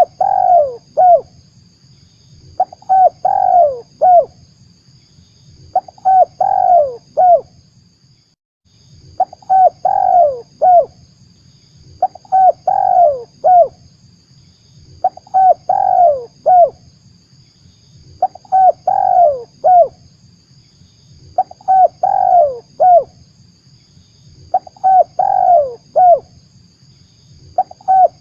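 Spotted dove cooing: the same short phrase of several falling coos, repeated about every three seconds, the call used as a lure for trapping doves.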